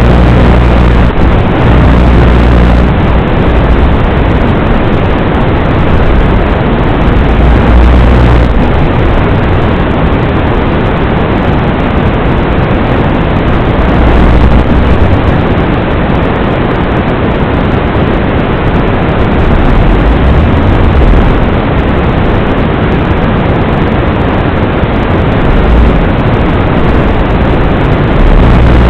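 Loud, steady rushing noise from a Torrent 110 mini FPV quadcopter in flight, with no clear motor whine standing out. A low hum sits under it for the first few seconds.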